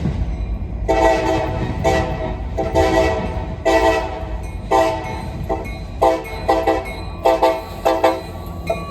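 Locomotive air horn blowing a horn show: about a dozen blasts, the first few long, then quicker short toots, over the low rumble of the train.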